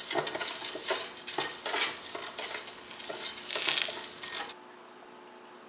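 Metal knife blade stirring liquid in a stainless steel pot, scraping and clinking against the sides and bottom in quick, irregular strokes. The sound cuts off suddenly about four and a half seconds in, leaving a faint steady hum.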